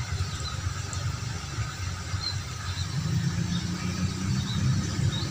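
Low, fluctuating rumble of a distant diesel-hauled local train approaching, still out of sight.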